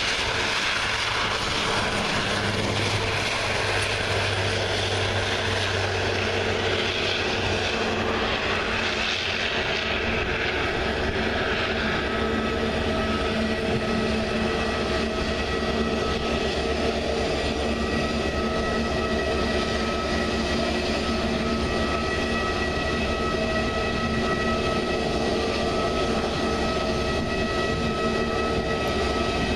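Airliner engines running without a break: a Flybe Dash 8 turboprop's propellers drone low for about the first ten seconds, then a steady whine of several high tones takes over, fitting jet engines such as a taxiing Airbus A320neo's.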